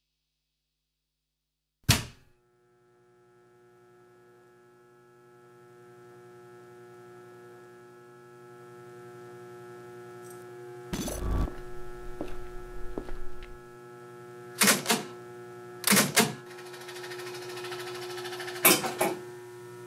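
A jukebox switching on with a sharp thunk, then a steady electrical hum that slowly grows louder. Partway through comes a clatter of mechanical clunks, followed by several single sharp clicks as its record mechanism selects a record for play.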